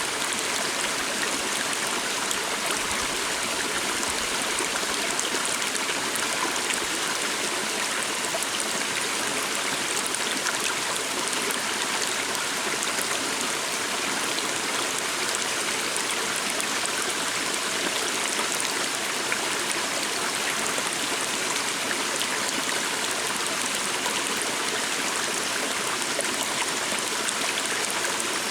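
A small stream flowing steadily, a continuous even rush of running water with no change in its flow.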